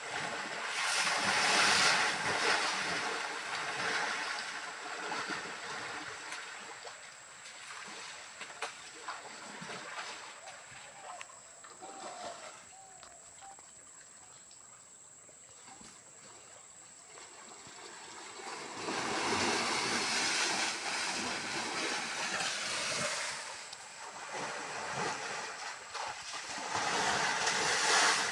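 Muddy stream water rushing and splashing around a wading elephant. It is loud for the first few seconds and again over the last third, with a quieter spell in between.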